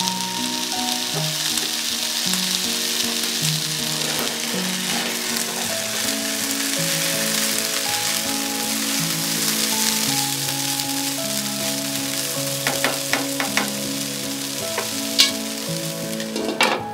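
Rice and black chickpeas sizzling in a frying pan, stirred with a silicone spatula that taps the pan a few times, before a glass lid is set down on it with a short clatter near the end.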